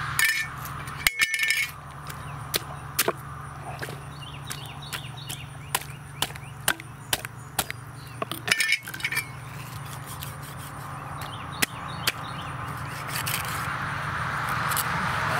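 Meat cleaver chopping through a paddlefish carcass on a round wooden chopping block: irregular sharp knocks, some coming in quick clusters.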